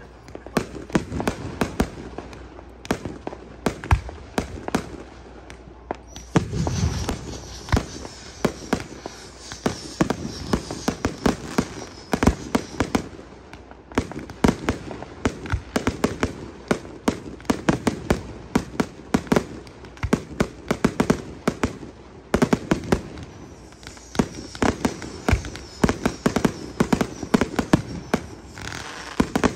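Aerial fireworks display: shells bursting in a fast, unbroken series of sharp bangs. A hissing crackle joins in about a quarter of the way through, and again near the end.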